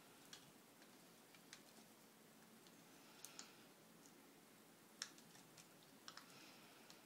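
Faint, scattered clicks and light scraping from fingers and a small tool working at the taped cable connector on the back of a laptop LCD panel, the sharpest click about five seconds in.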